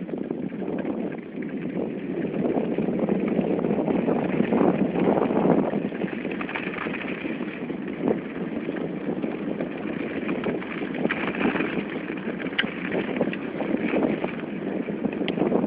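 Steady crunching hiss of travelling over packed snow, with wind on the microphone.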